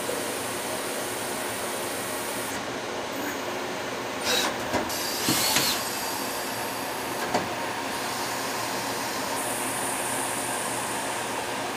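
Citizen Cincom M32 VIII Swiss-type sliding-headstock CNC lathe running as it machines a brass part under coolant: a steady machine hum and hiss, with a few short sharp noises about four to six seconds in and once more a little past seven seconds.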